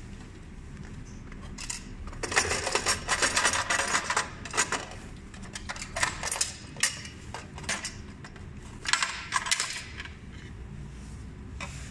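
Small metal coins clinking and rattling as a hand rakes them in the plastic coin box of a mechanical vending machine: a long jingling burst of about two seconds, then scattered single clinks and another short burst near the end.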